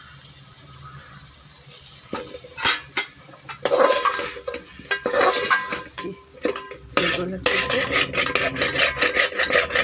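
Metal spoon stirring potato chunks into fried chicken masala in a metal pot, scraping and clinking against the pot with a ringing tone. A few single clanks come about two seconds in, then the stirring turns busy and continuous.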